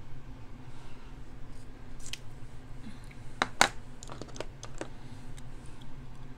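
A few small, sharp clicks and taps of makeup items being handled, the loudest pair about three and a half seconds in, over a steady low hum.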